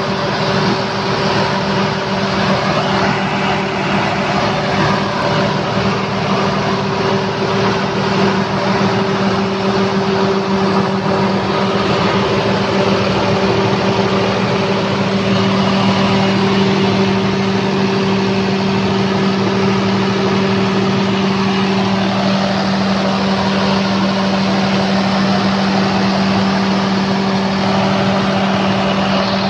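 Diesel generator set's engine running steadily at a constant speed, a continuous drone with a few steady tones.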